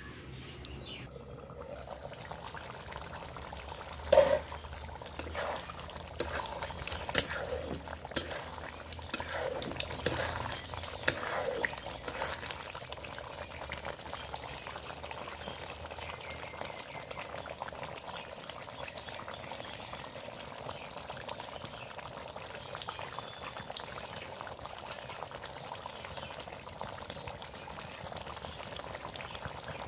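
Masala chicken curry simmering and sizzling in a pot over a chulha, a steady bubbling hiss, with a few sharp knocks and clicks in the first dozen seconds.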